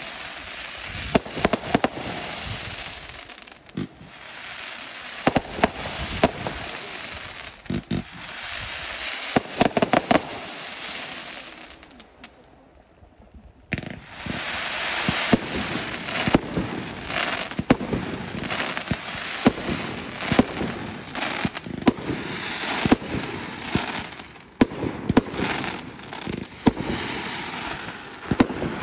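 A fireworks display: fans of comets shot up in volleys, with a steady hiss and many sharp cracks and bangs. It dies down briefly about halfway through, then resumes.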